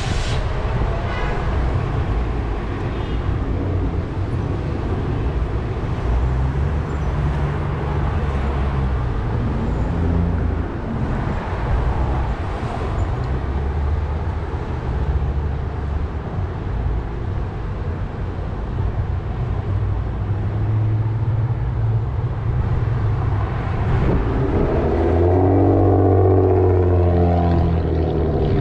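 City street traffic with a steady low rumble of wind on the microphone and cars passing. Near the end, a louder engine hum swells as a vehicle goes by close.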